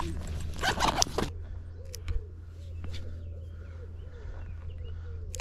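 Wind buffeting the microphone as a steady low rumble, loudest in a gust over the first second or so. After it come a faint squeak repeating about three times a second and small bird chirps.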